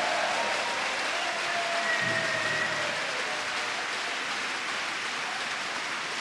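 Crowd of spectators applauding steadily in a sports hall at the end of a table tennis rally, with a few faint held cheers over the clapping in the first seconds.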